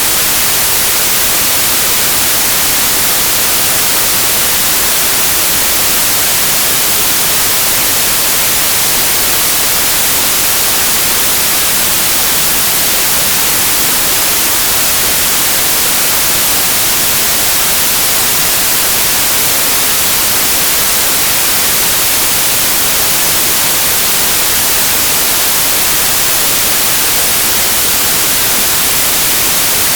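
Steady white noise: an even, loud hiss that does not change, brightest in the high frequencies.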